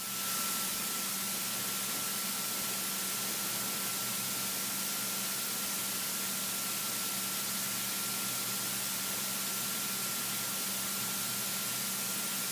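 Steady hiss with a faint low hum and a thin, steady high whine underneath: a single-engine light aircraft's piston engine and propeller running at low power while it taxis onto the runway, heard in the cockpit.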